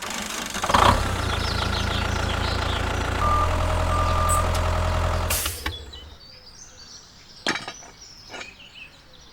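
An engine runs steadily. About three and a half seconds in there are two short high beeps. The engine cuts off suddenly at about five and a half seconds, and a couple of faint knocks follow.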